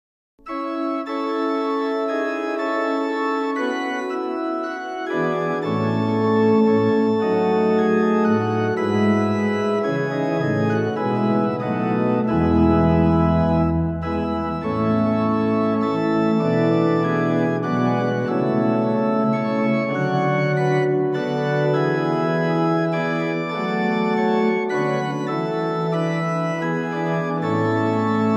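Church organ playing slow, sustained chords, starting just after the beginning. Lower bass notes join about five seconds in, with a deep pedal note held for a couple of seconds around the middle.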